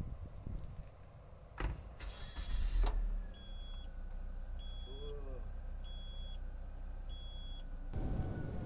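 A thump, then a car engine cranks, starts and settles into a steady idle. A high dashboard warning chime beeps four times, a little over a second apart.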